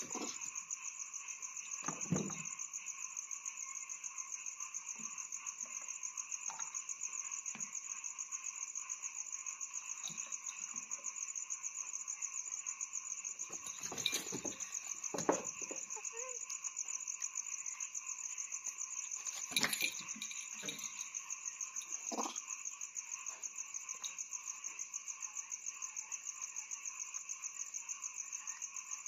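Steady chorus of night insects, a fast pulsing high trill, with a few scattered knocks and bumps.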